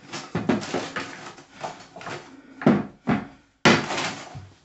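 Someone rummaging through stored gear off-camera: rustling and handling noise broken by several sharp knocks, the loudest between about two and a half and four seconds in.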